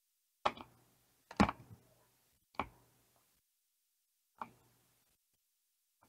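Shooter-game sound effects: four sharp impact sounds, spaced irregularly and each dying away quickly, the second the loudest.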